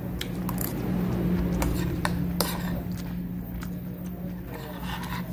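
A metal spoon clicking and scraping against a ceramic plate as it scoops rice and sauce, in a string of sharp clicks, over a steady low hum.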